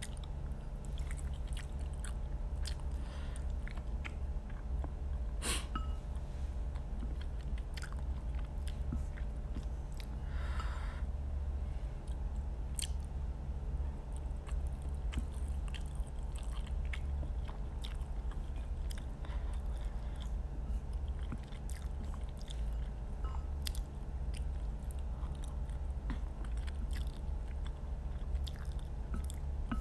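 A person chewing a mouthful of instant noodles close to the microphone: many small wet mouth clicks and smacks, over a steady low hum.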